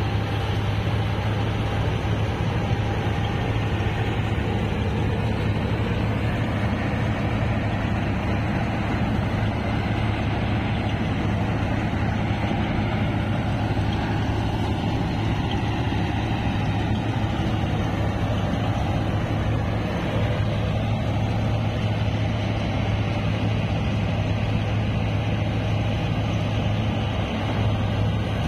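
Tractor-mounted Balkar B-525 harvester running steadily as it cuts and threshes standing rice: the Mahindra tractor's diesel engine gives an even low hum over the noise of the harvesting machinery.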